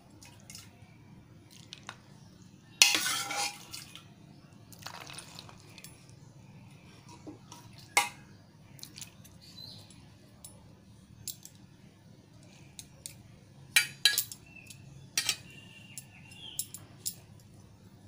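Steel spoon clinking and scraping against a stainless steel plate of boiled peas and potatoes, in scattered knocks, with the longest and loudest scrape about three seconds in.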